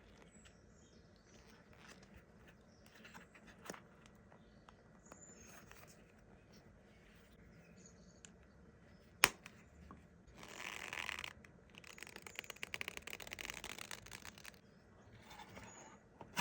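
A natural leather cardholder being handled, with faint rustles and ticks. A sharp click comes about nine seconds in, followed by two spells of scratchy leather rubbing with a fine, rapid crackle.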